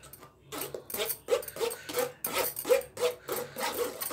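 Metal spoon scraping and squeaking against a stainless-steel mesh strainer as thick mango pulp is pressed through it, in quick repeated strokes of about three a second starting about half a second in.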